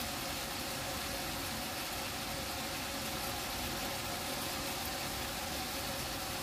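Steady hiss of bean sprouts and sauce simmering in a frying pan on an electric cooktop, over a faint, even hum.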